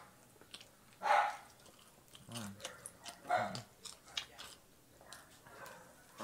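A dog barks three times, about a second in, then around two and a half and three and a half seconds in, over faint chewing and lip-smacking of someone eating with their hands.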